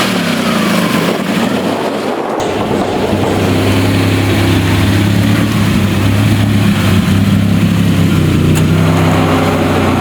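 Car engine running close by: its pitch drops in the first second or two as the revs settle, then from about three seconds in it holds a steady idle.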